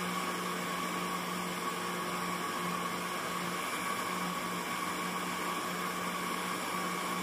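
Countertop blender running steadily at one constant speed with an even hum, whirring a thin liquid flan batter of milk and eggs.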